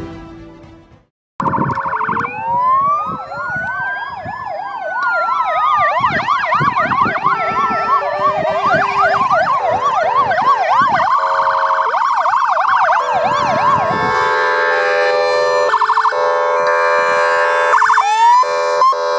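Fire engine sirens on an emergency run, several overlapping, starting up about a second and a half in. A slow wail rises and falls, then fast yelping sweeps go back and forth. Steady multi-tone air-horn blasts join in the second half.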